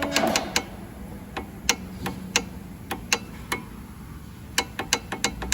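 A small motor's steady hum winds down with a falling pitch in the first half-second. Irregular sharp clicks and light taps follow, unevenly spaced, over a faint low hum.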